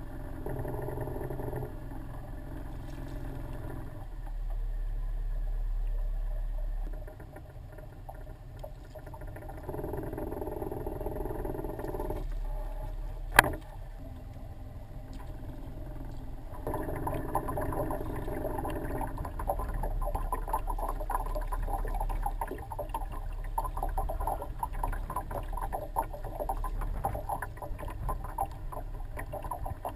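Wind rumbling on the microphone and water lapping against a small fishing boat, with one sharp knock about 13 seconds in.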